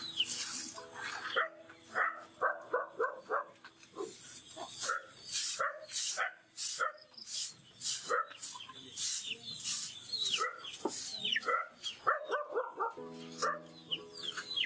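A broom sweeping the floor in repeated swishing strokes, about one a second, mixed with short clucks and peeps from chickens.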